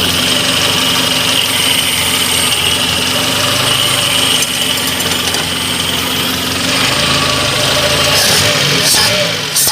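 Car engine idling steadily after a no-start fault was traced to poor wiring connections, with a few short clicks or knocks near the end.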